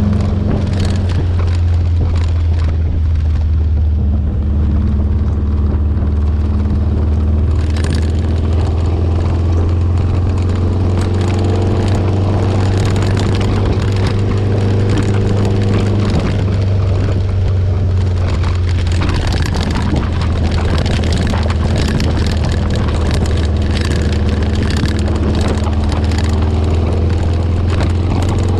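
Buggy Kadron's air-cooled VW 1600 flat-four running steadily while driving on the road, its pitch drifting gently up and down with the throttle, under a constant low drone. Road and wind noise come through the open-sided body.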